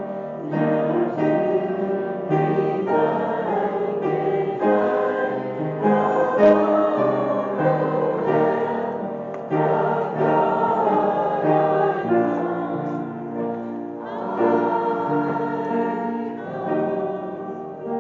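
A congregation or church choir singing a hymn with keyboard accompaniment.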